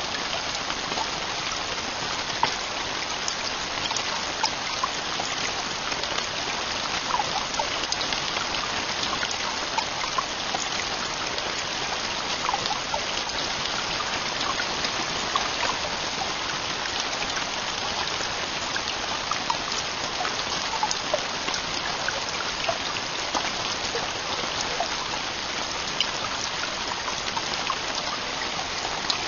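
Heavy rain falling steadily, with many separate drops hitting close by.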